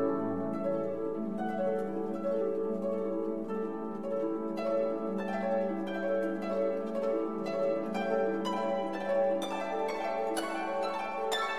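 Background instrumental music: plucked notes over held lower tones.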